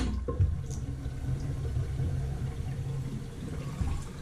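Lavatory sink draining freely down its freshly cleared drain: a steady low rumble of water running through the trap and drain pipe that dies away near the end. It follows a sharp click as the faucet handle is shut off.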